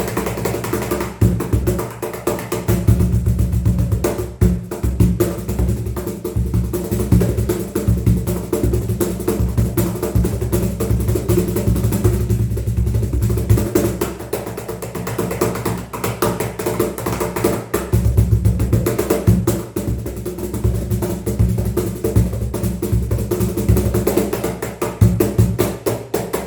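Cajon played by hand in a fast, continuous rhythm, with dense slaps and deep bass thumps on the wooden box.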